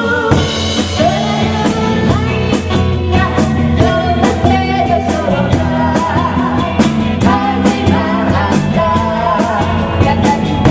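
Rock band playing a song: a drum kit keeping a steady beat under guitar and bass, with a singer's voice carrying the melody.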